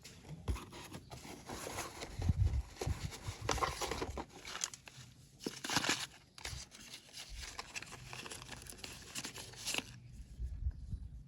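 Crinkly packaging of slate pencils being handled and torn open, an irregular run of rustles and tears that stops near the end.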